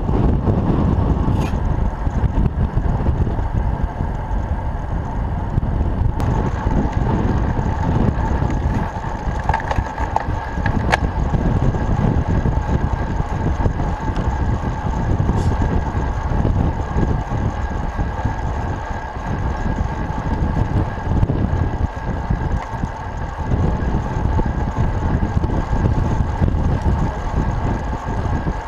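Wind rushing over the microphone of a camera mounted on a moving road bike, with road and tyre rumble. Two faint steady whines sit above the rumble, and a few sharp ticks come through.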